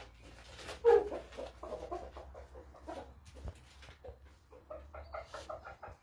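Shamo chickens clucking: a loud call about a second in, then a string of short clucks that quickens near the end.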